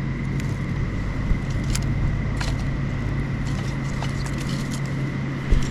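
A steady low mechanical hum with a faint high tone over it, and a few sharp crackles from a small, newly lit kindling campfire.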